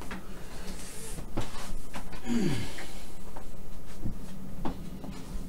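Scattered knocks and clicks of things being handled and set down, a second or so apart, with a short falling vocal sound, like a grunt or sigh, a little past two seconds in.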